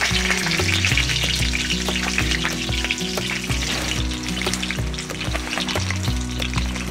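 Olive oil in a cast-iron Lodge skillet of ajillo, sizzling and crackling hard like deep-frying: the heat is too high. Background music plays under it.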